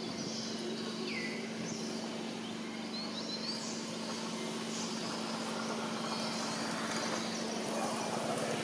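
Outdoor ambience: a steady low hum under a noisy background, with a few short high chirps and one falling whistle about a second in.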